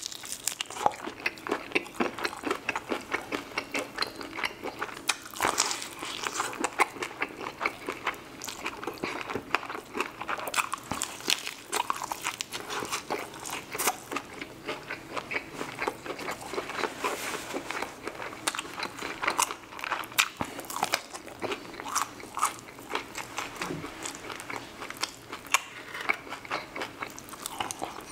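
Close-up crunching and chewing, with many quick, irregular bites, as a person eats crispy sauced Korean-style bone-in chicken wings.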